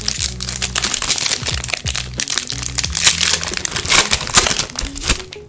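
Crinkling and crackling of a foil booster-pack wrapper being handled, a dense run of sharp crackles that keeps going until just before the end. Background music plays underneath.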